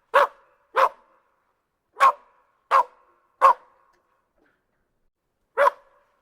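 A dog barking: six short single barks at uneven spacing, with a pause of about two seconds before the last one.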